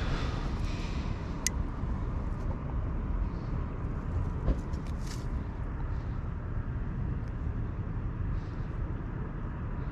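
A steady low outdoor rumble, with a few faint clicks.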